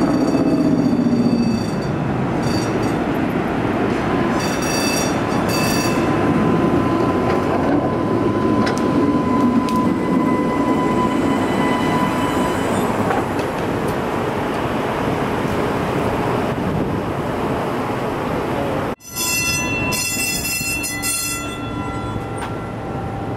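Electric streetcar rolling past close by, its steel wheels rumbling on the rails with high squealing whines that come and go. The sound cuts out abruptly near the end and resumes a little quieter.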